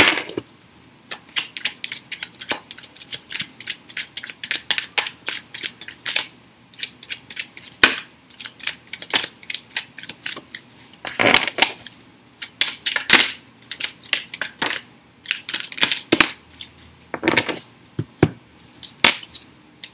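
A deck of tarot cards being shuffled by hand: runs of quick, crisp card flicks and slaps with short pauses between runs, and a sharp snap right at the start.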